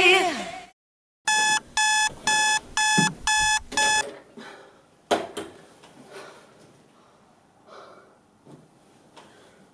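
Electronic bedside alarm clock beeping: six short beeps, about two a second, that stop abruptly as a hand reaches over and switches it off. A single thump follows about a second later.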